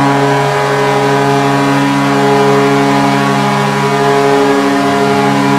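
Vancouver Canucks arena goal horn sounding a loud, steady chord of several held pitches.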